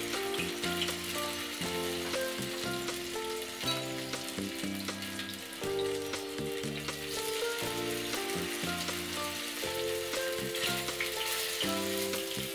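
Stuffed bitter gourds coated in rice-flour batter shallow-frying in oil in a kadhai: a steady sizzle with small crackles, with the odd scrape of a wooden spatula turning them. Soft background music of held notes plays underneath.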